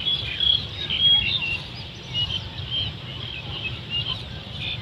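Birds chirping in many short, high notes, several a second, over a low rumble of wind on the microphone.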